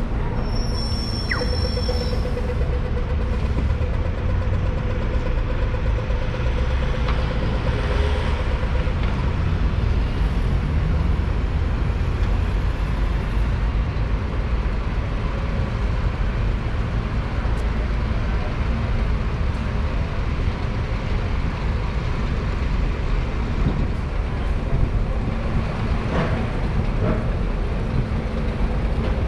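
City street traffic dominated by the low engine rumble of diesel double-decker buses close by. A brief high squeal comes about a second in, and a steady whine runs from about a second in to about eight seconds.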